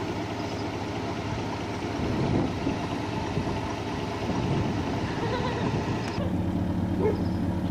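Pickup truck engine running at idle, a steady low hum. About six seconds in, the sound changes abruptly to a steadier, deeper hum.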